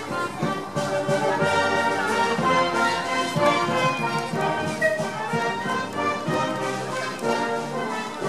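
Background orchestral music with brass, sustained notes at a steady level.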